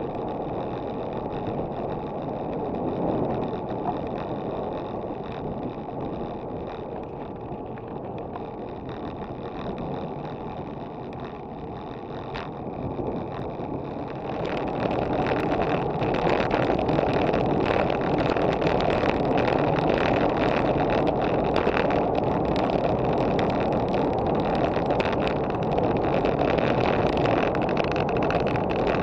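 Wind rushing over the microphone of an action camera mounted on a road bike, with the bike's tyres running on asphalt. The noise gets louder about halfway through, where the ride is faster.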